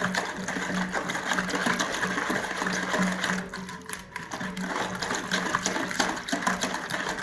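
Electric hand mixer running steadily, its motor humming and its beaters rattling in a mixing bowl, with a brief dip about halfway through.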